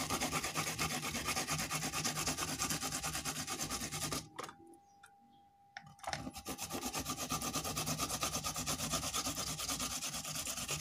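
Fresh ginger and kencur rhizome rubbed back and forth on a hand grater: quick, even rasping strokes. The grating stops for about a second and a half just past the middle, then starts again.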